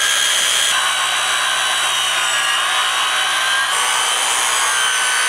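Corded circular saw running steadily as it rips along the edge of a rough pine slab: a steady high motor whine over the rasp of the blade cutting through the wood.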